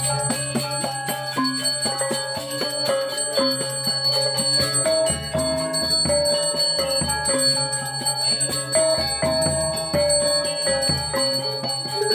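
Balinese gamelan music, with metallophone notes stepping along over a sustained low tone, and a high bell ringing steadily throughout.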